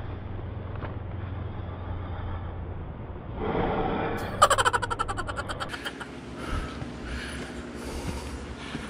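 A hiker's breathing close to the microphone: a long breathy exhale about three and a half seconds in, then a rapid rattling burst lasting about a second, the loudest sound here. A low steady rumble runs under the first few seconds.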